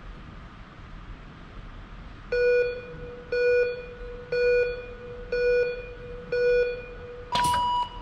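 Electronic countdown of a track-cycling start gate: five short beeps a second apart, then a longer, higher-pitched beep, the start signal, with a sharp clack as the gate releases the rider.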